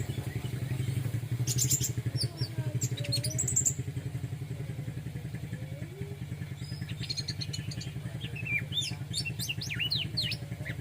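Orange-headed thrush singing in two bursts of quick, high chirping phrases, about a second and a half in and again from about seven seconds, over a steady low mechanical hum.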